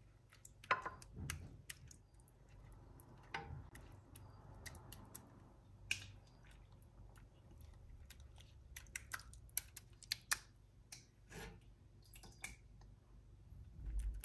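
A ladle tapping and scraping against a frying pan and a glass baking dish as it scoops and spreads minced-meat sauce, with soft squelches from the sauce. Scattered light clicks, with a few louder knocks spread through.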